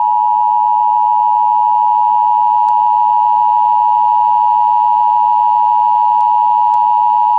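Emergency Alert System attention signal: two steady tones near 853 and 960 Hz sounding together as one loud, unbroken, harsh beep that announces an emergency alert broadcast.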